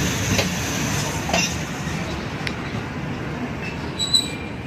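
Pakistan Railways passenger coaches rolling slowly along the platform, the wheels clicking over rail joints about once a second, with a brief high wheel squeal about four seconds in. The rumble gradually fades.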